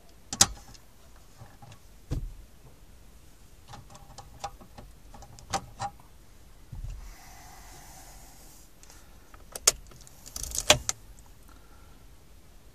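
Detachable faceplate of a Jameson JS-8400 car stereo being released and pulled off, with a sharp plastic click just under half a second in. Scattered plastic clicks and rattles follow as the faceplate is handled, ending in a quick cluster of clicks late on.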